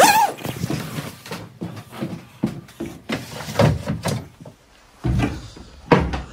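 Irregular knocks, thuds and footsteps of a person climbing aboard a boat and stepping across the deck into the cabin, the loudest knock right at the start.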